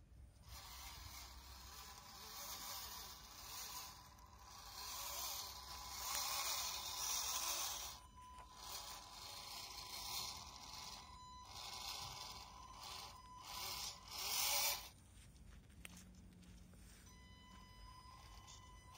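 Small electric motor and gearbox of a radio-controlled scale truck whirring in bursts, cutting off abruptly several times and starting again as the throttle is worked.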